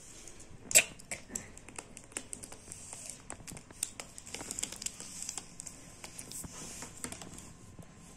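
Small plastic toys clicking and tapping together as they are handled, a toy car being fitted onto a plastic dinosaur, with one sharper click about a second in.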